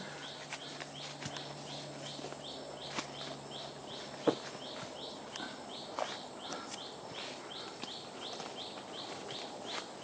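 Rainforest ambience: a steady high-pitched insect drone with a short chirp repeating about three times a second. A few sharp footstep clicks on the trail, the loudest a little past the middle.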